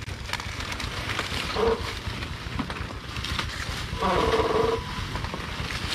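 Underbone motorcycle engine running with a steady low pulsing, under wind and rough-trail noise. A brief vocal call comes about four seconds in, and a shorter one near the two-second mark.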